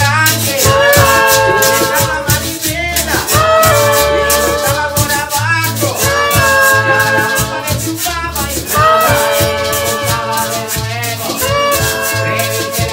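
Live cumbia band playing: a metal tube percussion instrument keeps a fast, even shaken rhythm over a bass line, with acoustic guitar, trombone and a man's voice singing into a microphone. Phrases of held notes return every couple of seconds.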